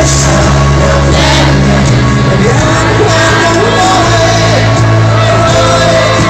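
A pop-rock band playing live through a stadium PA with singing over sustained bass notes, heard loud from among the crowd on the stadium floor.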